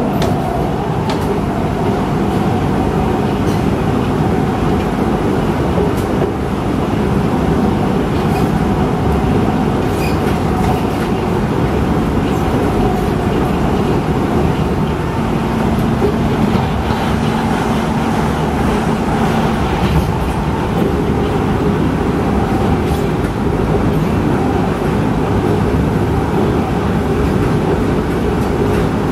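Inside a Kawasaki/Kinki Sharyo C151 metro train running between stations: a steady rumble of wheels on rail and the car body. A faint steady hum joins in about halfway through for a few seconds.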